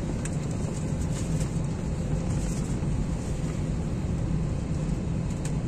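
Steady cabin noise inside an airliner: a constant low hum with a fainter airy hiss over it.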